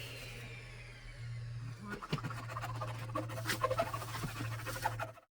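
Scratching and clicking noises, scattered and irregular, over a steady low hum; everything cuts off abruptly near the end.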